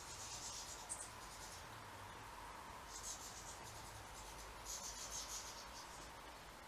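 European goldfinches twittering: three spells of high, thin chatter, one at the start, another about three seconds in and a longer one about five seconds in.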